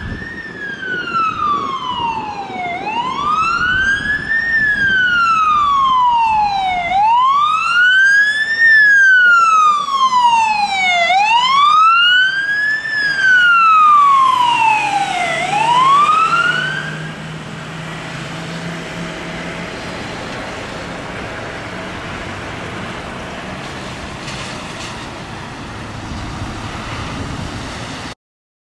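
Emergency siren on a Ford F550 rescue truck sounding a slow wail, its pitch rising and falling about every four seconds as the truck passes. The wail stops about seventeen seconds in, leaving steady, quieter engine and road noise.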